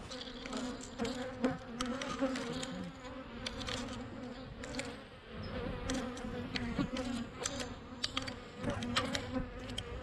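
Honeybees buzzing around an open hive, a steady hum, with many sharp ticks as bees fly into the camera.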